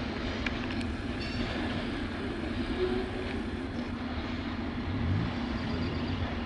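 Freight train rolling past on the rails, a steady rumble of wheels with a few sharp clicks in the first second as the last car goes by.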